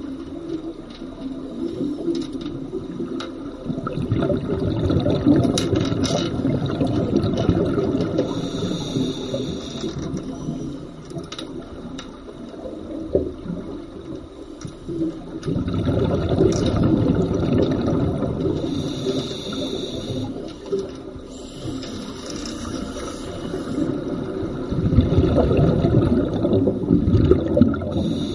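Scuba breathing heard underwater: three long bubbling exhalations through a regulator, about ten seconds apart, each with a brief higher hiss near its end.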